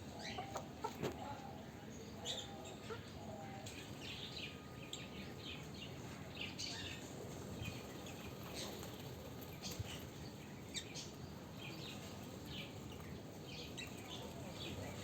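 Many small birds chirping: short, high calls that come irregularly and overlap throughout, with a few lower calls in the first few seconds.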